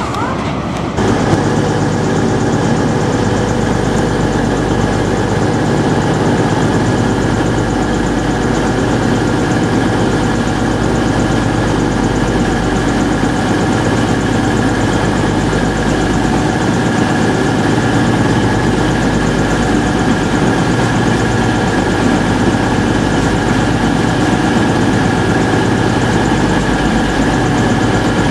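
Class 222 Meridian diesel multiple unit's underfloor diesel engines idling at the platform: a steady, even hum with several constant tones that does not change.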